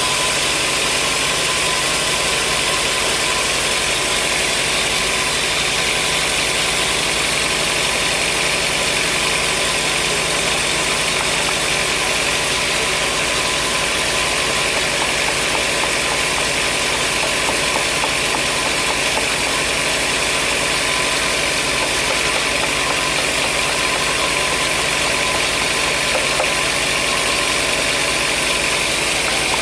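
Sawmill machinery running steadily: an even, loud mechanical drone that holds the same level without breaks.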